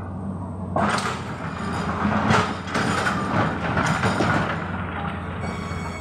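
Hydraulic excavator's diesel engine running steadily, with a loud clatter and scrape of rocks and gravel starting about a second in and fading after about four seconds as the bucket unloads into a steel dump truck bed.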